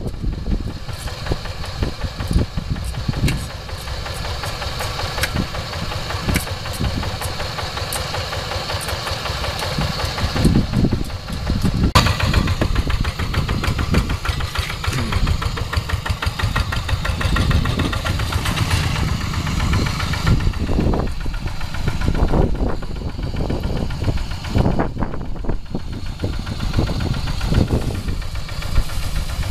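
Kubota RD85 single-cylinder horizontal diesel engine of a two-wheel hand tractor running steadily as the tractor is driven through the paddy on cage wheels.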